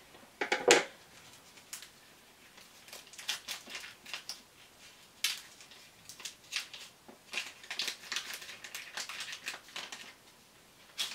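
A small taped-up package being cut into and its wrapping crinkled and pulled open: scattered crackles and rustles, the loudest about half a second in.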